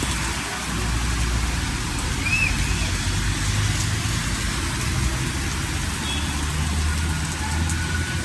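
Steady hiss of heavy rain mixed with the low hum of a vehicle engine or passing traffic.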